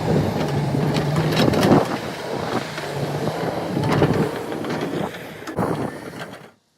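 Engine running with a steady low hum and scattered knocks and clatter; the sound cuts off suddenly near the end.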